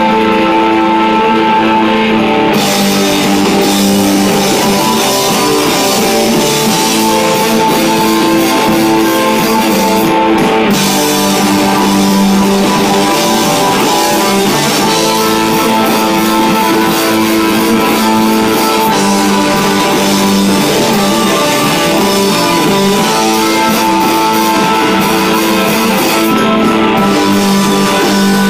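Live rock band playing loud music, with electric guitar chords ringing over drums.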